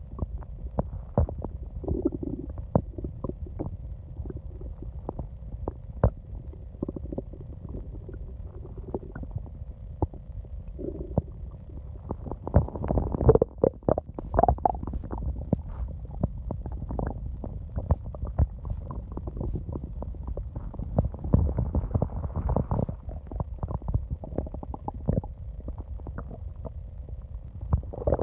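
Human stomach growling and gurgling: a continuous low rumble full of small pops and crackles, with a couple of short pitched gurgles early on. It swells into louder gurgling bouts a little before halfway and again about three-quarters of the way through.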